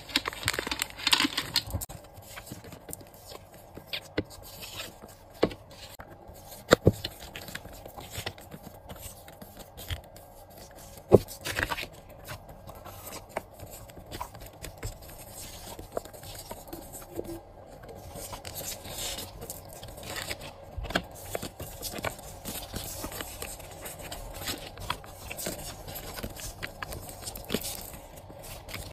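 Close-up handling of packing materials: a holographic plastic zip bag crinkles in the first two seconds, then paper stickers and cards rustle, slide and tap against each other, with scattered sharp clicks.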